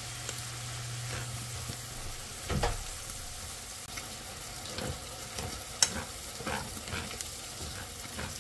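Minari stir-frying in hot oil in a pan: a steady sizzle, with a utensil scraping and knocking against the pan every second or so as the greens are tossed. A low hum underneath stops about two and a half seconds in.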